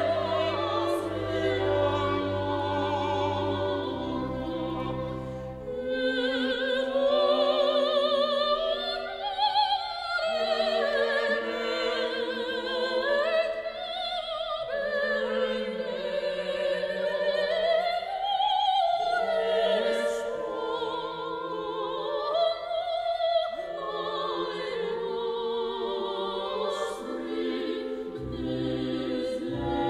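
Operatic singing with wide vibrato over a classical orchestral accompaniment, with low held notes at the start and again near the end.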